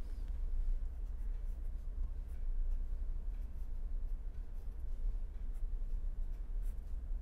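Marker pen writing on paper, a string of faint irregular scratches as the strokes of an equation are drawn, over a steady low hum.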